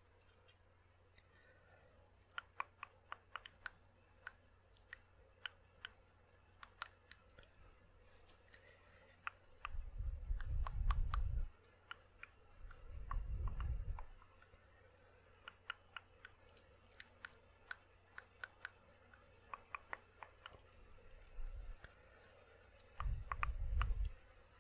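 Dry ASMR mouth sounds close to the microphone: tongue clicks and wet lip pops in irregular flurries. A few short, low rumbles on the microphone come and go in between.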